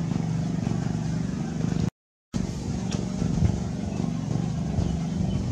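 A steady low engine hum, cut by a brief silent gap about two seconds in.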